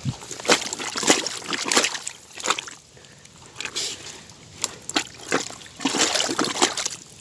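Shallow water and wet mud splashing and sloshing in short, irregular bursts, some close together and some a second or more apart.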